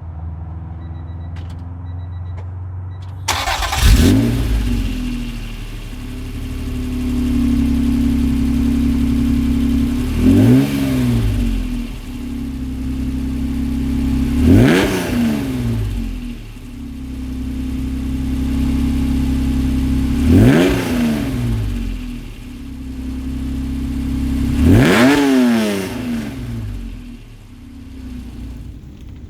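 Acura NSX V6 running through a Comptech aftermarket exhaust: idling, then revved five times in short blips, each rising in pitch and dropping back to idle.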